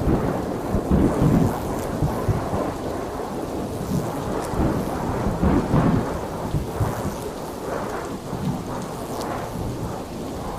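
Heavy rain falling steadily, with low rumbles that swell and fade, loudest about a second in and again about halfway through.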